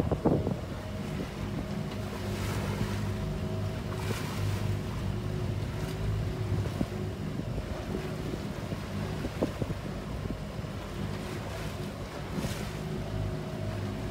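Motorboat engine running at a steady speed, with water rushing and splashing against the hull as it runs through light chop, and wind on the microphone.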